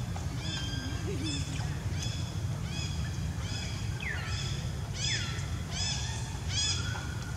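A series of short, high animal calls repeated about twice a second, with a couple of longer falling squeals around the middle, over a steady low rumble.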